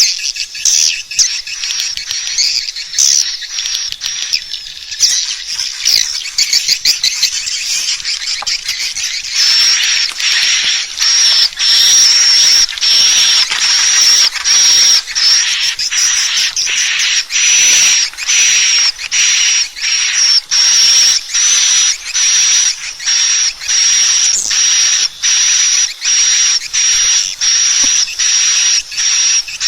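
Swiftlet calling-sound recording: high, rapid twittering chirps of swiftlets. About nine seconds in, it changes to a denser, continuous chirring call with a high steady whistle, broken by short regular gaps a little more than once a second.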